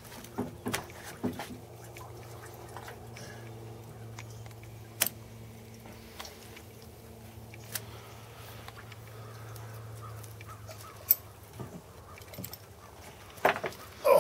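A few sharp knocks and clicks, the loudest cluster near the end, as a large channel catfish is handled on wooden dock boards and hooked to a hand scale. Under them is a faint steady low hum that stops about three-quarters of the way through.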